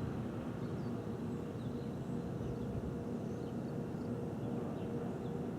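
Outdoor ambience of a steady low rumble with a faint steady hum, and birds chirping now and then.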